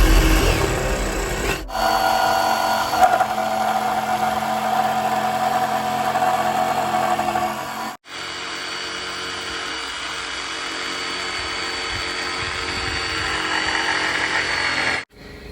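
An electric power tool's motor running steadily with a high whine, heard in three edited stretches that break off abruptly.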